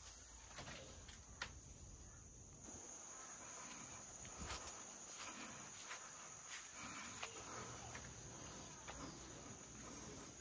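Faint, steady high-pitched chorus of insects, its lower band growing stronger a few seconds in, with scattered light clicks.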